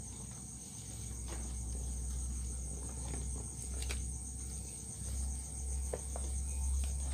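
Crickets chirping in a steady high trill, over a low rumble and a few faint clicks.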